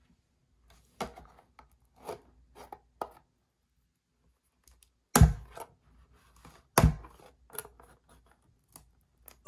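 Cardboard Donruss football holiday box being worked open by hand: separate short scratching and tearing sounds at its taped seals, with two louder knocks about five and seven seconds in.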